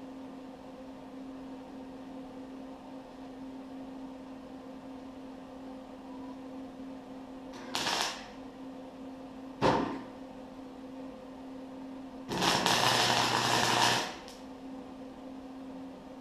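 Arc welding: the electrode crackles and sizzles in two brief strikes about 8 and 10 seconds in, then in one longer bead of about two seconds near the end, with a steady hum between them.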